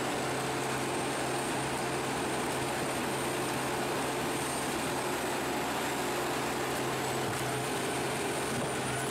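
Large mobile wood shredder running steadily with tree stumps in its hopper, giving an even low drone with a faint high whine above it.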